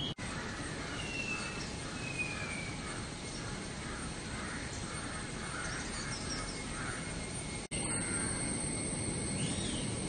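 Outdoor natural ambience with birds calling: a run of short repeated chirps, about two a second, and a couple of brief high whistles. The sound cuts out for an instant twice, and a steady high hiss follows the second break.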